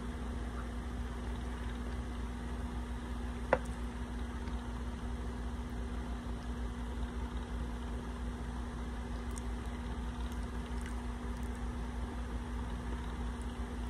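Steady low hum with a constant tone. One sharp click sounds about three and a half seconds in, and a few faint ticks follow later on.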